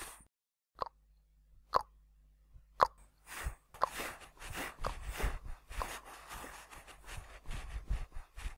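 Short plopping cartoon sound effects: three single plops about a second apart, then a quick, busy run of them several a second.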